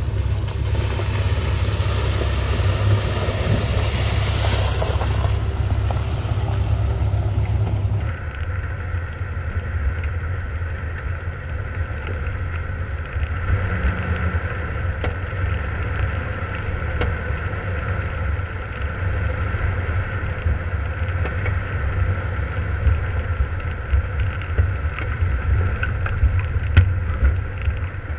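A Jeep driving along a snowy trail toward the microphone, its engine and tyres mixed with wind rush. About eight seconds in, this cuts to the steady drone of the engine of the vehicle carrying the microphone, with occasional sharp knocks as it rolls over the rutted snow.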